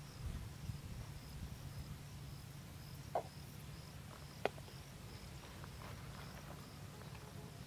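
Faint outdoor ambience: an insect chirping steadily at about two chirps a second over a low steady hum, with a couple of light clicks midway from chillies being handled on a plastic cutting board.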